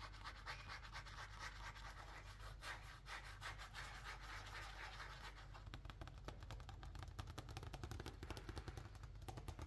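A loose sheet of sketchbook paper being handled: faint rustling and scratching, turning into quick crackles about halfway through as the page is moved.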